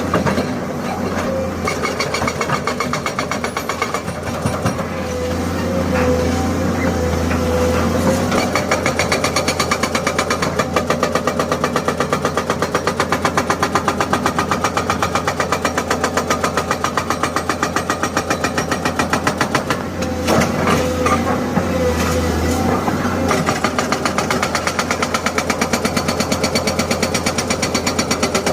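Excavator-mounted hydraulic breaker hammering rapidly and evenly at a concrete foundation, several blows a second, over the steady running of the excavator's diesel engine. The hammering is plainest from about eight seconds in and breaks off briefly a little past the twenty-second mark.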